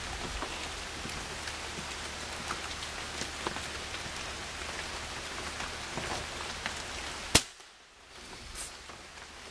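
Steady rain hiss, then a single sharp gunshot about seven seconds in as the hunter fires at a gray squirrel.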